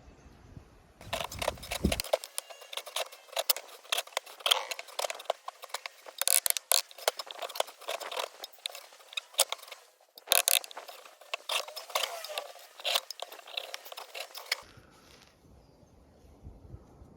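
A Top-Flite golf ball being cut open: a dense run of scraping and crackling clicks from the cutting tool working through the cover and rubber. It stops shortly before the end.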